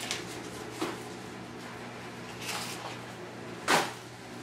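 Quiet room with a steady low hum, a faint rustle about halfway through, and one short, sharp knock or clack a little before the end.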